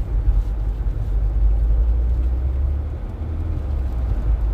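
Car driving on a wintry road, heard from inside the cabin: a steady low rumble of tyre and road noise.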